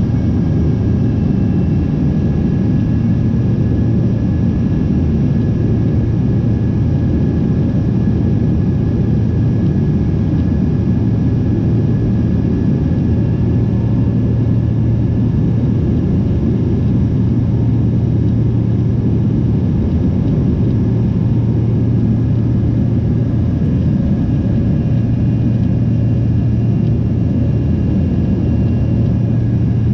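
Cabin noise of an Embraer 145 regional jet climbing after takeoff: a steady low rumble from its rear-mounted Rolls-Royce AE 3007 turbofans and the rushing air, with a faint steady whine above it.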